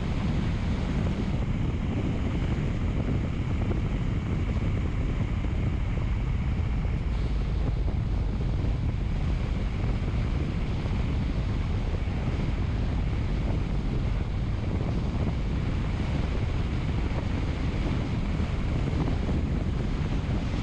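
Steady low rushing rumble of wind on the microphone, even in level with no single events standing out.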